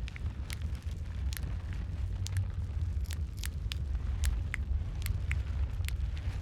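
Wood fire in a fireplace crackling, with sharp irregular pops about twice a second over a steady low rumble of the flames.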